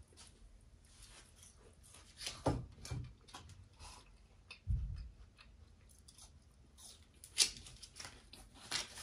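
Light handling of tableware: scattered small clicks and knocks of sauce pots and dishes on a metal room-service tray, with a dull thump about halfway through and a sharp click a little later.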